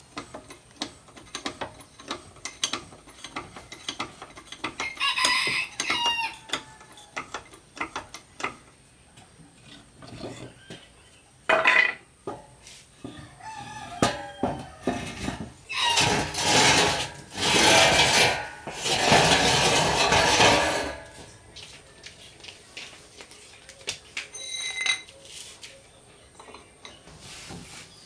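Metal tools and parts clinking and tapping repeatedly, with a rooster crowing.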